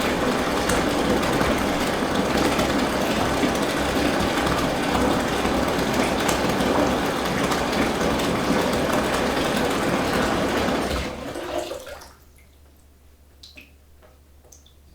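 Bathtub filling from the tap, water pouring and splashing steadily, then the tap is shut off about eleven seconds in and the flow dies away. A few faint drips follow.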